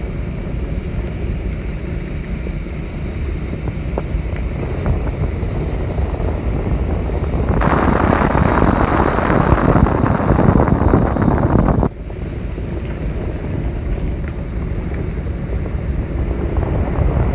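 Wind buffeting the microphone: a steady low rumbling noise that grows louder and harsher for about four seconds in the middle, then drops abruptly about twelve seconds in.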